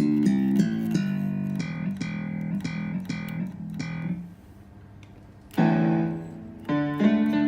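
Roland GR-20 guitar synthesizer playing a plucked guitar-like tone in a quick run of notes that stops about four seconds in; after a short pause, two held chords in a keyboard-like tone, recorded through a phone's microphone.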